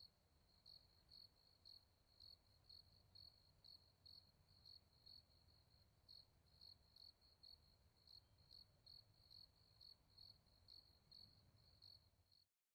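Near silence, apart from a faint insect chirping at an even pace of about two chirps a second. The chirping stops shortly before the end.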